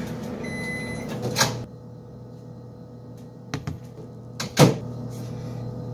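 Microwave oven beeping once, then a sharp click after which its running noise drops away. A couple of small clicks as the door is opened, then a loud knock about four and a half seconds in.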